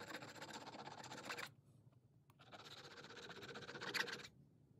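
Small needle file rasping on the steel locking lug of a Galil bolt in two runs of filing, the first about a second and a half long and the second about two seconds, with a short pause between. Metal is being taken off the lug so the bolt will lock up fully when force-matched.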